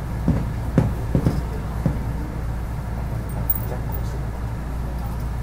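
Steady low hum and rumble inside a commuter train car, with a few short, dull thumps in the first two seconds.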